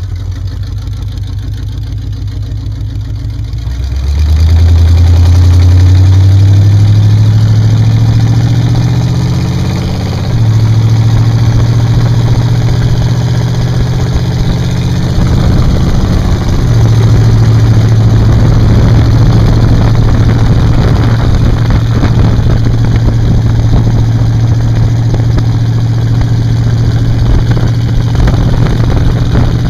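1937 Chevy rat rod truck's engine running low and steady, then pulling hard from about four seconds in, its pitch climbing through the gears with shifts about ten and sixteen seconds in, before settling to a steady cruise with rising wind and road noise.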